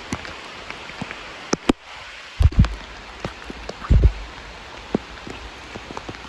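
Steady rain falling, with individual drops striking close by as sharp irregular taps, and a few heavier hits about two and a half and four seconds in.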